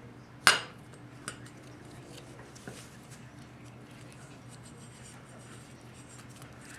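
A sharp metallic clink about half a second in, followed by two smaller clinks, from metal parts being handled on a workbench, over a faint steady hum.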